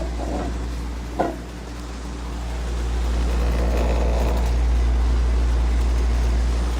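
Window air conditioner running with a steady low hum. There is a sharp click about a second in, and the low rumble swells louder in the second half.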